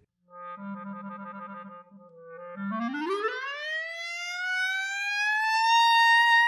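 Clarinet glissando: a low note with a quick trill, then a smooth upward slide of more than two octaves to a high note that is held. The bend is made almost purely by voicing inside the mouth, with the fingers lifted off the keys.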